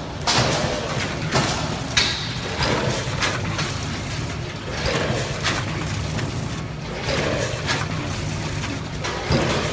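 Popcorn packing machine running: a steady low hum under a quick, uneven run of short clacks and rattles.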